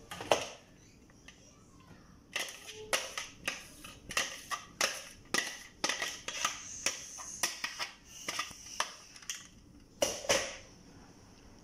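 Metal spoon clinking and tapping against glass and ceramic dishes while cream is spread and scooped: a run of sharp taps about two to three a second, then two louder knocks near the end.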